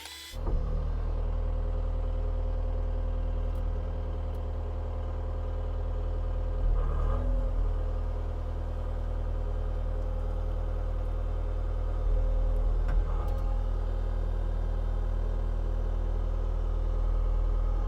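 CAT skid steer's diesel engine running steadily, with brief rises in level about seven and thirteen seconds in.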